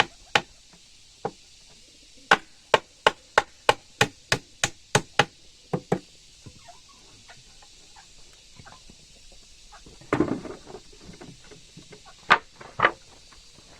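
Sharp blows of a hand tool on timber: a quick run of about ten strikes at roughly three a second, a few more spaced out, a short clatter about ten seconds in, then two last strikes.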